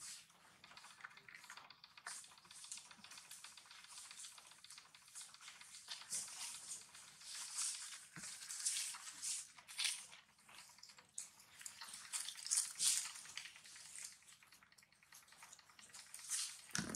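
Faint, irregular crackling and rustling with many small clicks from monkeys moving about and handling food among dry leaves on the ground, a little louder in the middle.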